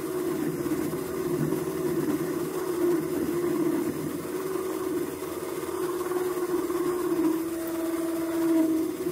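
Benchtop mini metal lathe running with a steady hum while its tool cuts into the spinning aluminium stock, parting off a displacer cap.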